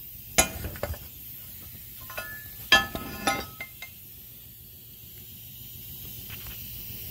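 Metal clinking and knocking: a few sharp metallic knocks that ring briefly, in two clusters, one just under a second in and a louder one around three seconds in.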